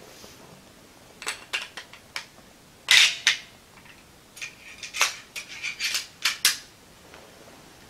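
Sharp metallic clicks and clacks of the steel parts of a Zastava M70 AB2 assault rifle being handled during field-stripping, in irregular bunches with the loudest clacks about three seconds in and again about five seconds in.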